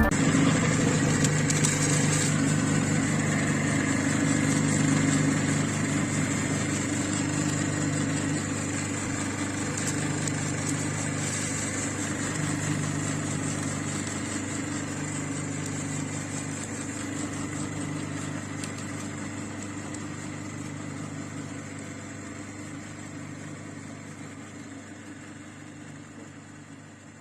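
Electric meat grinder's motor running steadily with a low hum, gradually getting quieter.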